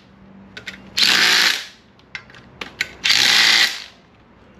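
Cordless power driver running in clutch pressure-plate bolts in two short bursts about two seconds apart, the bolts being snugged in a crisscross pattern. Light clicks between the bursts.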